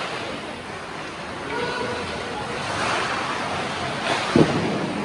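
Ice hockey game noise in a rink: a steady hiss of skates on the ice and spectators' voices, with a brief loud sound about four seconds in.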